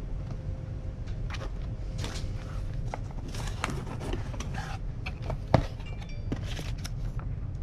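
Cardboard packaging being handled: a paper sleeve slid off a white cardboard box and its lid opened, with scraping and rustling of paper and cardboard, and one sharp knock about five and a half seconds in.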